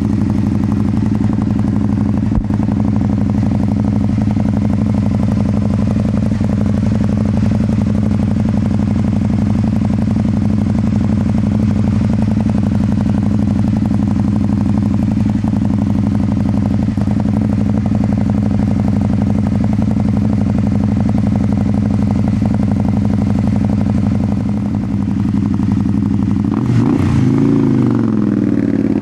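2008 Can-Am Spyder Roadster's Rotax V-twin idling steadily through an MBRP carbon-fiber slip-on exhaust. Near the end the revs rise and fall as it pulls away.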